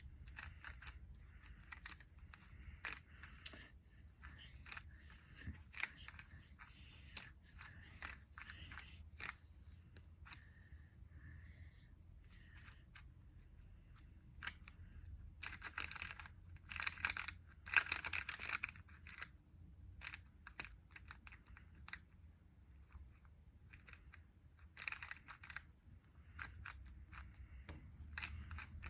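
Square-1 puzzle being turned and sliced during a solve: irregular sharp clicks and clacks of its plastic layers. About two-thirds of the way through there is a louder, denser flurry of clicking.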